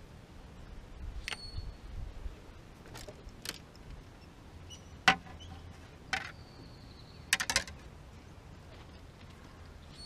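Scattered sharp clicks and knocks of fishing gear being handled on a boat deck. The loudest comes about five seconds in and a quick run of several follows a couple of seconds later. A couple of them are followed by a short high ring.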